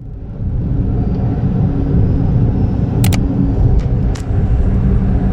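Steady low rumble of a car on the move, with a couple of faint clicks about three and four seconds in.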